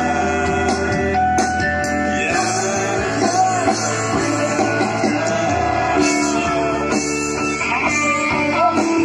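Live pop-rock band playing an instrumental passage between sung lines of an Indonesian pop ballad: electric guitars and drums amplified through a PA.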